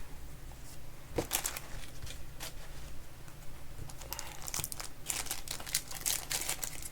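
Plastic crinkling and rustling with scattered light taps and scrapes, as card sleeves and packaging are handled.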